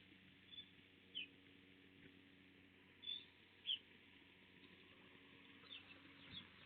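Faint short high chirps, like a small bird calling, half a dozen at irregular gaps over a low steady hum.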